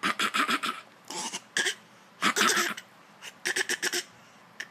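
A fake cough put on on purpose: several bouts of short, forced coughs in quick runs, with single coughs between them.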